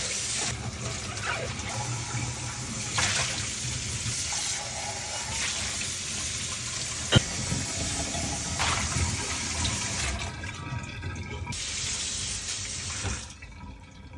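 Water running from a tap into a sink, a steady rushing hiss, with one sharp knock about halfway through. The flow thins out twice in the last few seconds.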